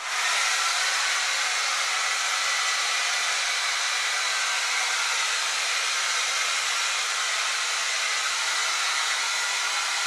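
Handheld electric hair dryer running steadily, its fan blowing a constant airy rush with a faint motor whine.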